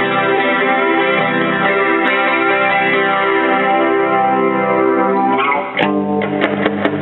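Clean electric guitar played through a Roland Jazz Chorus combo amp. Long ringing chords change near the end to shorter, sharply picked chords.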